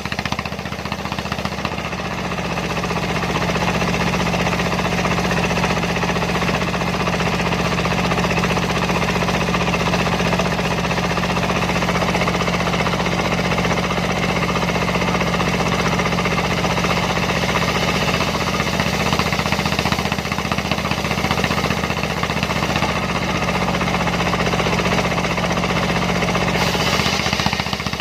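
Dongfeng diesel engine running a homemade circular saw mill, with the blade cutting through a sengon log: a steady engine drone under a dense sawing noise that swells about three seconds in, holds, and falls back just before the end as the cut finishes.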